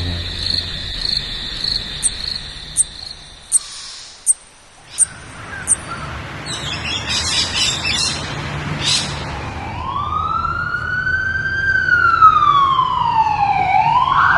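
A run of separate sound effects. First a high chirp repeating a few times a second with sharp clicks between, then scattered bird-like chirps. From about two-thirds of the way in, an emergency vehicle siren wails slowly up and down.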